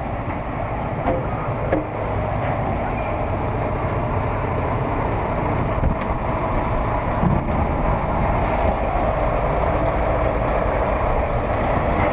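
Steady vehicle engine noise with a low rumble, growing a little louder near the end.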